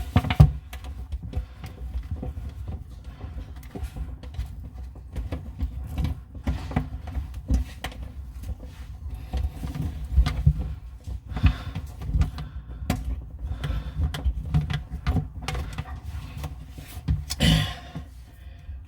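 Scattered clicks and knocks of hands and metal parts being worked while fitting a bathroom sink faucet, over a low rumble of handling noise. A brief vocal sound comes near the end.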